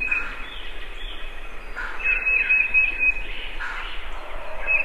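Wild songbirds singing: a high, even trill about a second long, repeated twice, with shorter falling chirps in between.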